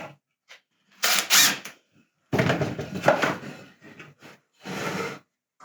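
Cordless impact driver driving screws into wood in three bursts, the second one the longest.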